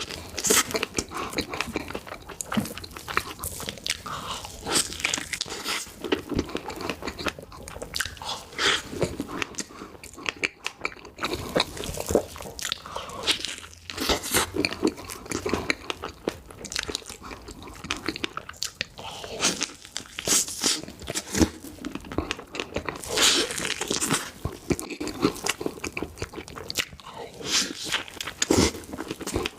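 Close-miked eating: crisp, crunchy bites followed by chewing, the crunches coming in quick irregular clusters with a louder bite every second or so.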